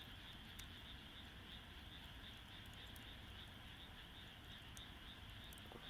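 Faint, sparse pops of a wood campfire, a few clicks over several seconds, against a steady high chirring of insects.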